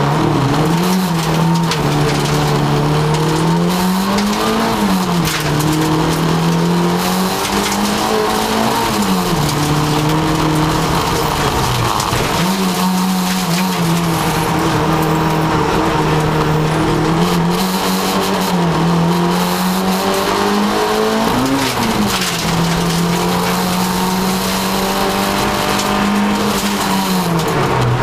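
VW Polo rally car's engine heard from inside the cabin, driven hard on a rally stage. Its pitch climbs under acceleration and drops sharply several times as the driver lifts and changes gear, with a constant hiss of tyre and road noise beneath.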